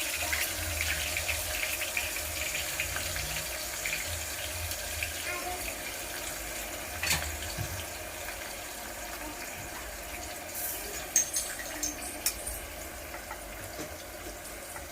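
Onion paste sizzling and spluttering as it fries in hot oil in a pressure cooker, gradually settling, with a few clicks of a utensil against the pan.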